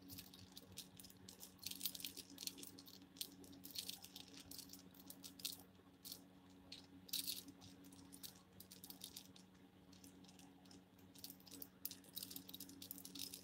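Wooden discs and beads of a layered necklace clicking against each other as it is shaken, a faint, irregular rattle.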